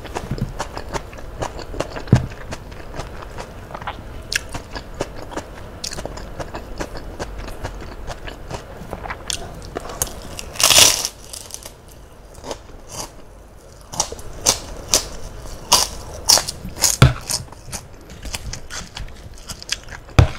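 Close-up eating sounds: a person chewing with wet mouth clicks and crackles, and a loud crunch about ten and a half seconds in as a kerupuk cracker is bitten.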